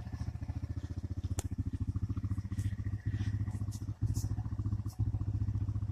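Four-wheeler (ATV) engine idling with a steady, rapid putter, and a single sharp click a little over a second in.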